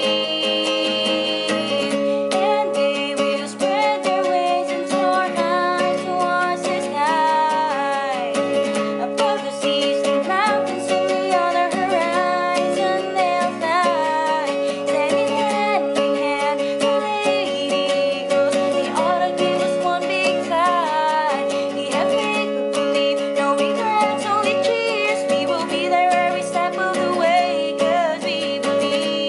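Roundback acoustic guitar strummed steadily in chords, with a sung melody coming in about three seconds in and carrying on over the strumming.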